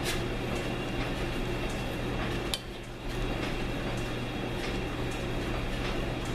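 1942 South Bend lathe running with a steady hum while a threading pass is cut on a steel rifle barrel, with light metallic clicks and clinks throughout. A sharp click comes about two and a half seconds in, followed by a brief drop in level before the running sound picks up again.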